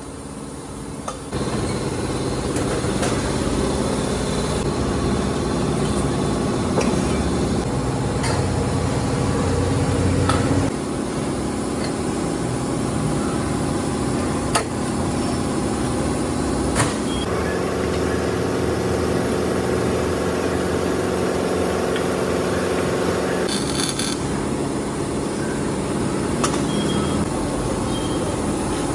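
Steady workshop machine noise with a low hum, broken by a few sharp metallic clicks and knocks.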